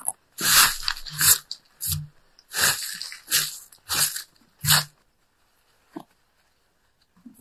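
Dry fallen leaves rustling and crunching as a hand sweeps them off wooden planks, in a quick run of short sweeps that stops about five seconds in.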